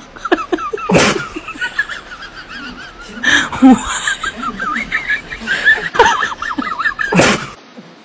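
Baby monkey crying in a stream of short, wavering high squeaks, broken by several loud sharp bursts. The sound drops away shortly before the end.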